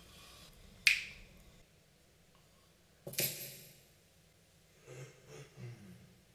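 Two sharp clicks about two seconds apart, the first the loudest and the second with a brief high metallic ring, followed by a few soft low sounds near the end.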